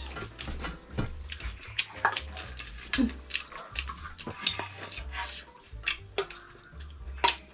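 Close-up sounds of someone eating by hand at a table: chewing, with scattered sharp clicks and light clinks of steel plates and bowls, over a low steady hum.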